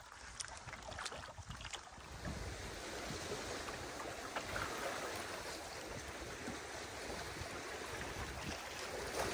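Wind gusting on the microphone and water lapping against a canoe's hull on a choppy lake, with a few small splashes in the first couple of seconds. From about two seconds in, a steady rush of wind and moving water takes over and builds toward the end.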